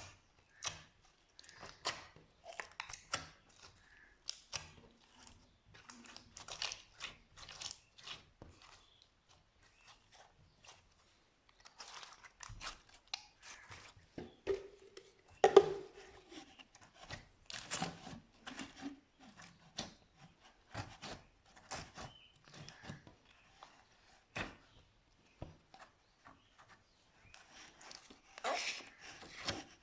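Slime being squeezed and poked, giving irregular sticky pops and clicks, with one louder pop about halfway through and a denser crackling run near the end.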